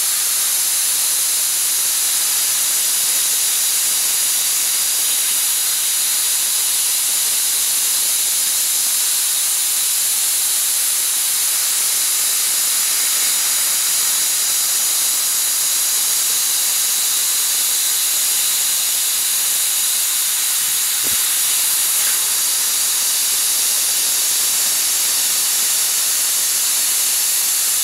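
Fiber laser cutting machine cutting 10 mm copper plate: a loud, steady high hiss of the assist-gas jet blasting from the cutting nozzle through the kerf.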